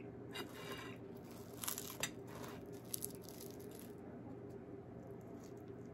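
A croissant being handled and torn apart by hand: a few faint, brief crackles of flaky pastry in the first three seconds, then only a low steady hum.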